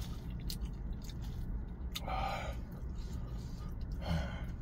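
Mouth sounds of a man eating hot cup noodles: two short breathy puffs, about two seconds apart, with quiet eating noises over a steady low hum.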